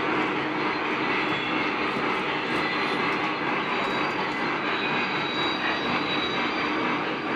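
Lionel O-gauge model train running along three-rail track: a steady rumble of wheels and motor.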